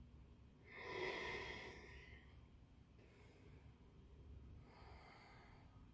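A woman breathing deeply, faint: a longer, louder breath starting about a second in, then a quieter one near the end.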